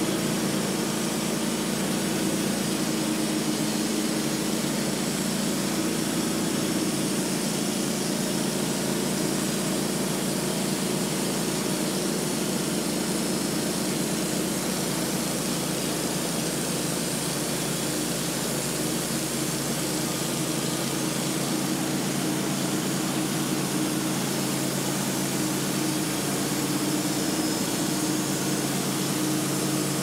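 Portable sawmill running steadily at an even pitch while sawing through a large white oak log.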